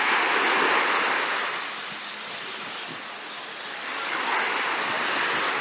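Sea waves washing onto a beach: a wave surges in at the start, dies away after about a second and a half, and the next one builds again about four seconds in.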